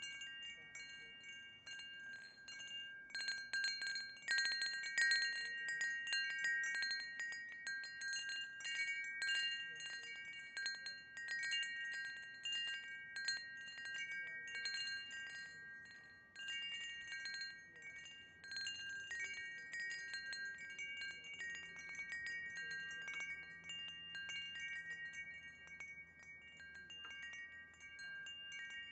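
Wind chimes ringing in the wind: many irregular, overlapping strikes whose ringing tones hang on for a second or more. They are busiest from about three to ten seconds in.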